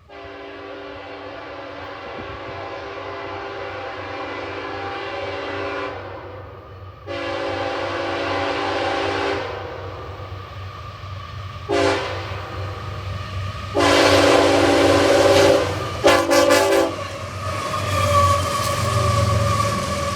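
Diesel freight locomotive's multi-chime air horn blowing a long blast of about six seconds, a second long blast, a short toot, another long blast, then a run of quick stuttering toots. After that, the rumble of the passing train goes on with a steady ringing tone.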